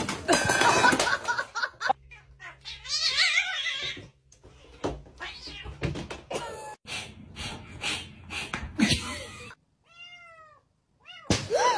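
Cats meowing across a run of short clips, ending in a quick series of short meows that rise and fall in pitch.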